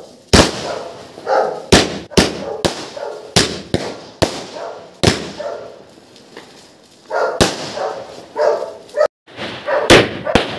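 Diwali fireworks and firecrackers bursting in about ten sharp bangs, with a lull in the middle. A dog barks repeatedly between the bangs.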